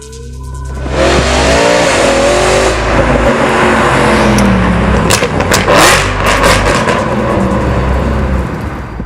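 Audi RS5 B8's 4.2-litre V8, running with its catalytic converters deleted and a valved catback exhaust, revving hard: the engine note climbs over the first few seconds, then falls away. Sharp exhaust crackles and pops break through around the middle.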